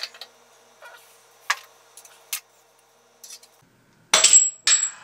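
A scrap aluminum gear being worked out of the milling machine's saddle: a few light metal clicks, then two sharp metallic clinks about half a second apart, each with a brief high ring, about four seconds in.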